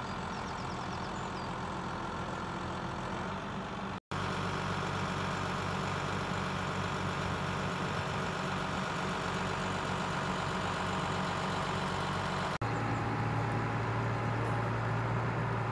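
Outboard motor running steadily, with a low, even engine hum. The sound cuts out abruptly twice and resumes at once; after the second break the low hum is stronger.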